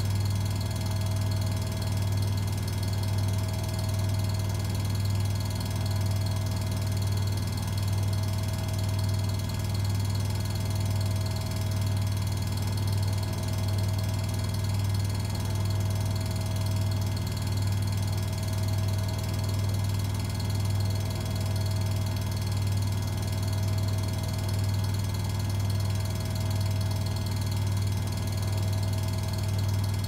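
Arçelik 8120 PMG front-loading washing machine running in its rinse cycle: a steady low hum with a slight regular pulse, a fainter higher tone swelling and fading every couple of seconds.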